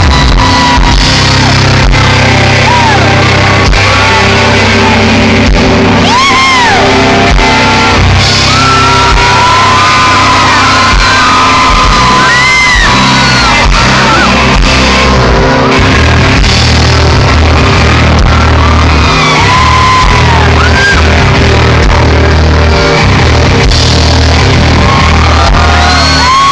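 A live country-rock band playing loudly, recorded from among the audience, with fans whooping and shouting over the music.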